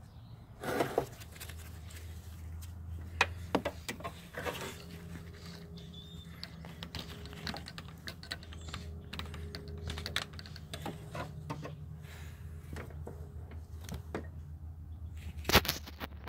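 Irregular light clicks and clinks of hand tools on engine fasteners, a socket and ratchet working small bolts, with one sharper clack near the end, over a steady low hum.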